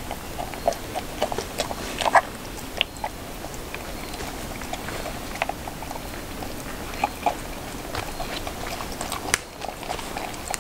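Chewing and biting sounds, a scatter of short clicks and crunches, over a steady background hiss.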